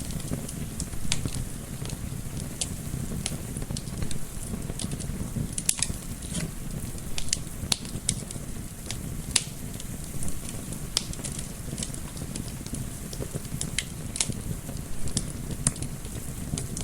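Wood fire crackling, with irregular sharp pops and snaps, a few a second, over a steady low rumble of flame and soft wind noise.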